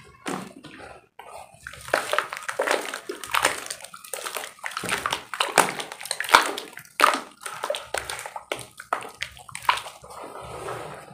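Hands sloshing and splashing in a tub of muddy water as blocks of roasted dirt are dipped and soaked: a quick, irregular run of wet splashes that starts just after the beginning.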